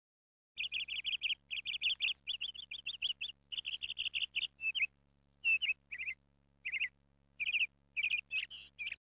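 A small bird chirping in quick runs of high chirps and short trilled phrases, with brief pauses between them, over a faint steady hum.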